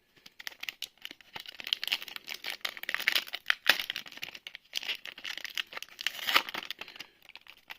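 Foil booster-pack wrapper of a Magic: The Gathering Commander Masters collector booster being torn open and crinkled by hand, an irregular run of crackles and snaps.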